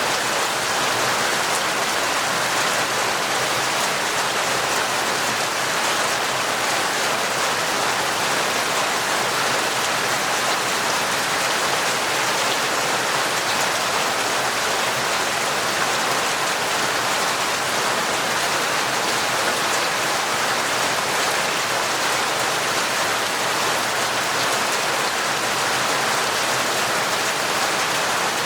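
Heavy rain falling steadily, a dense, even hiss of drops with no change in strength.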